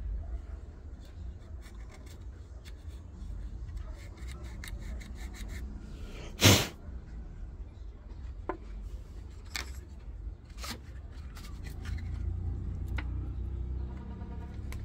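Clicks, taps and rubbing of a washing machine control board and its plastic housing being handled and fitted back into place, with one sharp loud knock about six and a half seconds in and a few lighter knocks after it.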